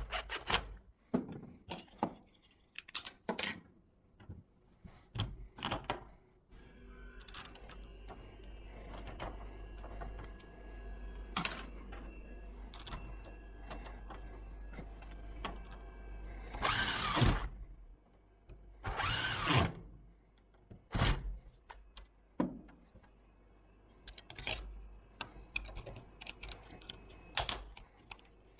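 Lock-fitting work with hand tools and a power drill: scattered clicks and knocks, then a drill running steadily for about ten seconds in the middle, followed by two short, loud, rough bursts and more knocks.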